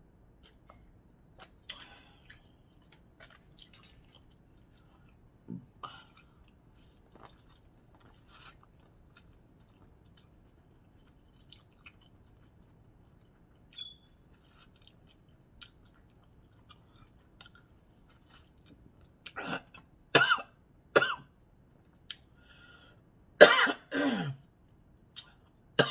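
Soft eating noises with scattered small clicks, then a woman coughing hard: three coughs, and a few seconds later a harsher cough and throat clearing near the end. She is choking on seafood-boil seasoning that went down the wrong way.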